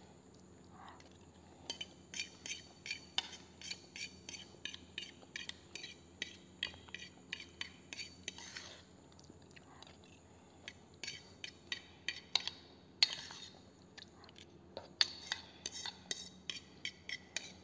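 Metal spoon scraping and clinking against the inside of a bowl in quick runs of strokes with short pauses between them, scooping out the last of the noodles to empty the bowl.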